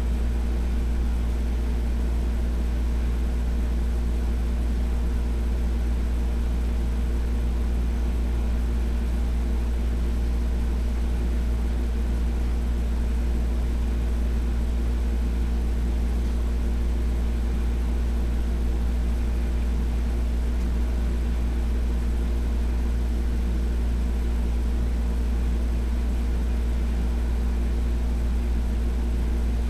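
A steady low mechanical hum that does not change.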